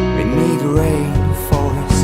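Band music from a studio-recorded pop-rock song. The bass and low end drop out briefly, then drums and bass come back in just under a second in, with regular drum hits under the melody.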